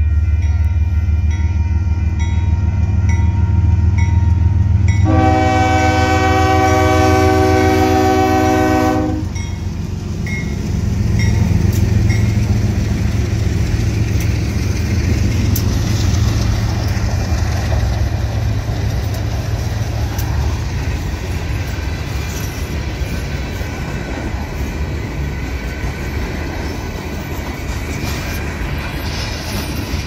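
A diesel freight train passes close by. The locomotive engines rumble and a grade-crossing bell dings about twice a second. About five seconds in, the CSX lead locomotive's horn sounds one long chord-like blast lasting about four seconds, and after it tank cars roll past with wheels clattering on the rail joints.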